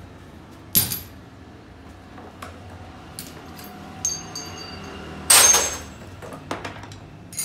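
Metal hand tools clinking and clattering as they are handled among metal trays and wire baskets: a sharp knock about a second in, a few ringing clinks, and the loudest clatter about five seconds in.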